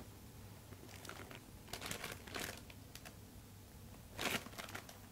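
Plastic packaging crinkling as wrapped items are handled and taken out of a shopping basket, in a few short bursts, the loudest near the end.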